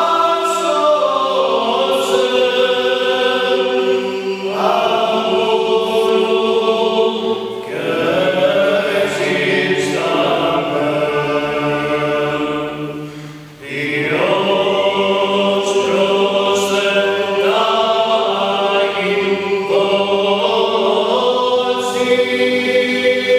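Small male choir singing Byzantine liturgical chant a cappella: a moving melody over a steady held drone, with a brief pause for breath about thirteen seconds in.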